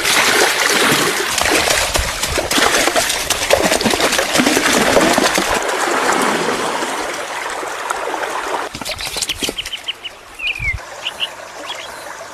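Water splashing and sloshing hard, which stops suddenly about eight and a half seconds in; after it, a bird chirps: a quick run of short chirps and a falling call.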